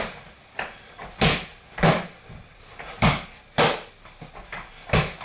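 Boxing gloves punching focus mitts: about six sharp slapping hits in quick bursts, with softer knocks between them.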